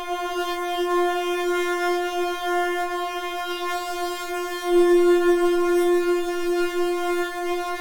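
Synthesizer holding one steady note, its tone colour wavering, swelling louder about five seconds in.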